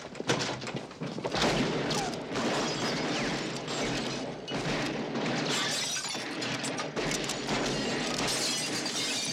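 Glass shattering and things crashing and breaking in a long, dense run of impacts, film sound effects of a place being smashed up.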